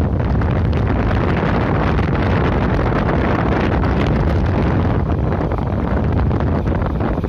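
Steady wind rush on the microphone of a moving motorcycle, with the bike's engine and road noise running underneath.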